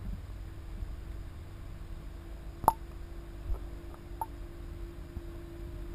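Underwater ambience picked up by a submerged camera: a low muffled rumble with a steady hum, a sharp click a little under halfway through, and two fainter ticks after it.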